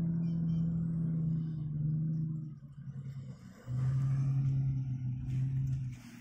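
A bogged four-wheel drive's engine held at steady revs in soft sand. It eases off about two and a half seconds in, then picks up again at a lower, steady pitch.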